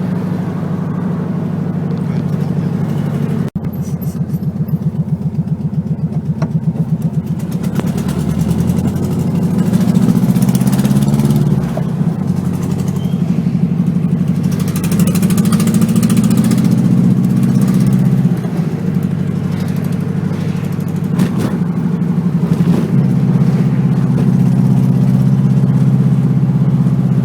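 1969 Volkswagen Beetle's air-cooled 1500 flat-four engine running with a very loud exhaust, its pitch rising and falling a few times with the revs. The weld on one muffler pipe has broken, leaving a gap at the heat exchanger that lets the exhaust escape unsilenced.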